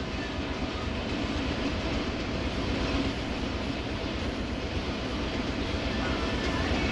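Cab noise of the RL class diesel locomotive RL302 under way: a steady drone of the engine and running gear with rumble from the wheels on the rails, even throughout.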